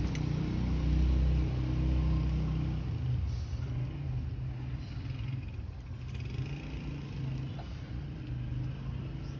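A low, steady mechanical rumble, loudest for the first three seconds or so and then settling quieter.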